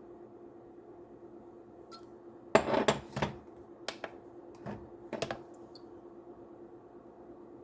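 Kitchen clatter of dishes and utensils: a quick cluster of loud knocks and clinks, then a few lighter separate taps, over a faint steady hum.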